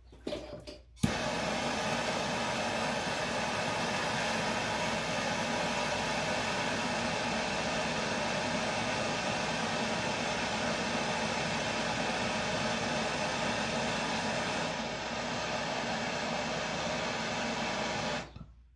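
Plumber's gas torch lit with a sharp click about a second in, then burning steadily while heating copper pipe joints for soldering; it is shut off abruptly near the end.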